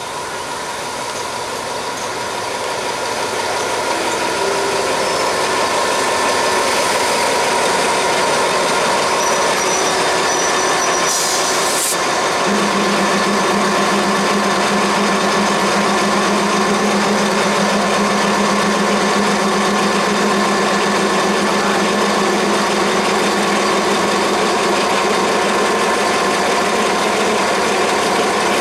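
Alsthom diesel-electric locomotive engine running as the passenger train draws in, growing louder over the first few seconds and then holding a steady drone as it stands close by. A brief hiss comes about eleven seconds in.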